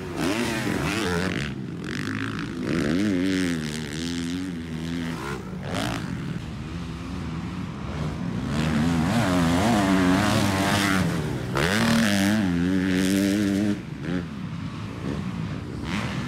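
Motocross dirt bikes ridden hard on a dirt track, engines revving up and falling back again and again as the riders accelerate, shift and take jumps. The engine sound swells loudest about two-thirds of the way through, then drops off suddenly.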